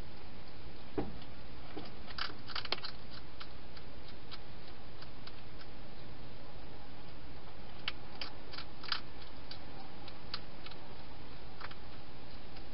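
A hedgehog eating at a food bowl: irregular sharp clicks of crunching and chewing, coming in two bunches, over a steady background hiss, with a soft knock about a second in.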